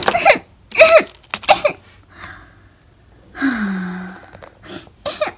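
A person's voice making a few short, breathy vocal sounds, then a longer sigh that falls in pitch about three and a half seconds in.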